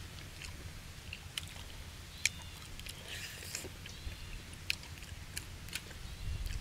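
People chewing and biting braised pig head meat, skin and cartilage, making scattered sharp clicks and wet smacks.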